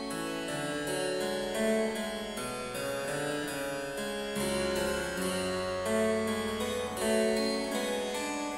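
Harpsichord playing a slow succession of notes and chords, changing about once a second.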